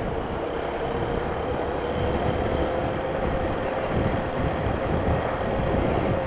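Honda Bros 160's single-cylinder engine running at a steady cruise, its drone creeping slightly up in pitch, under a rush of wind and road noise on the camera microphone.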